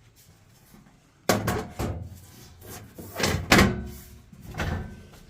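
A series of knocks and clatters from hard objects being handled, like a panel or door being shut. A sharp bang comes about a second in, and the loudest knock comes about halfway through.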